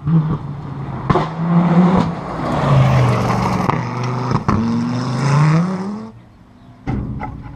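Rally car engine, still out of sight, revving hard up through the gears with the pitch climbing and falling, and sharp cracks at the gear changes. The engine note drops away suddenly about six seconds in as the driver lifts, followed by a few sharp pops.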